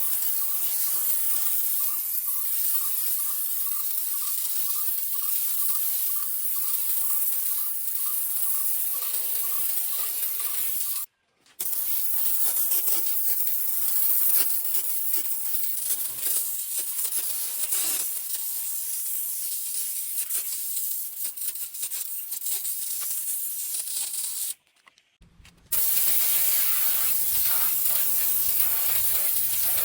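Hand-pump manual foam sprayer spraying foam with a steady hiss, cut off briefly twice.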